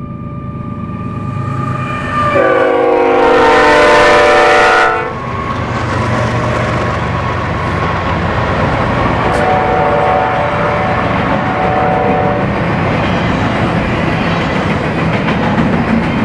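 BNSF freight train passing: the lead diesel locomotive sounds its air horn in one loud chord of about two and a half seconds, then a second, quieter blast a few seconds later, over the steady rumble of the locomotives' engines. Near the end, double-stack container cars roll by with the noise of wheels on rail.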